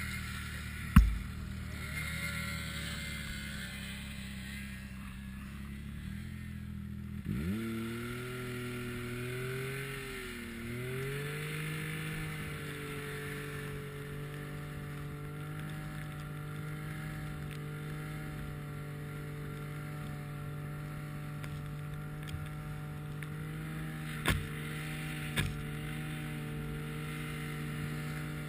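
Polaris snowmobile engine running low, then revving up sharply about seven seconds in and holding a steady higher pitch as the sled rides on. A sharp knock about a second in and two more near the end.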